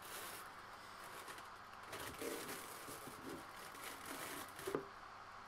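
Faint rustling and crinkling of a plastic vacuum bag and breather cloth being peeled by hand off a cured carbon prepreg panel, with a brief tap near the end.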